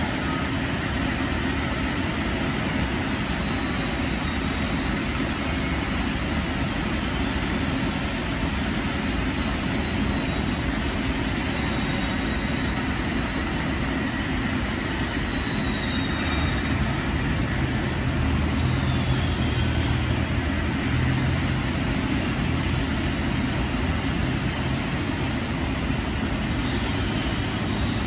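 Arc welding on a large flanged steel pipe, a steady, unbroken noise with a faint high whine wavering over it.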